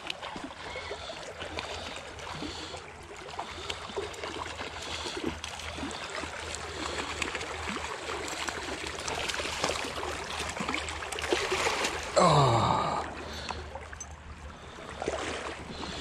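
Hooked brown trout splashing and thrashing at the surface of a creek over the steady rush of flowing water. About twelve seconds in, a brief sound slides down in pitch, the loudest moment.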